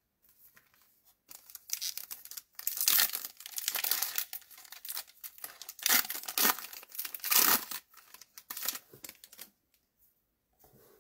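Foil trading-card pack wrapper being torn open and crinkled in the hands, a run of ripping and rustling that starts about a second in and stops shortly before the end.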